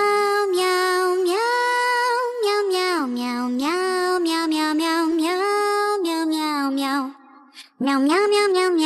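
Novelty meow-style song: a high voice sings a melody on repeated 'meow' syllables, gliding between held notes. It breaks off briefly about seven seconds in, then picks up again.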